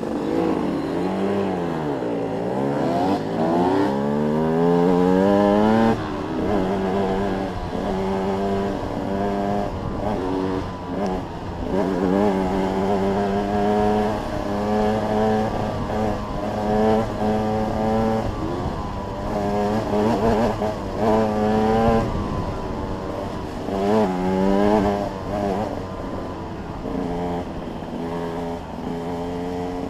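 Two-stroke enduro dirt bike engine under way. It revs up hard over the first few seconds, then runs with repeated rises and dips in pitch as the throttle opens and closes and the gears change.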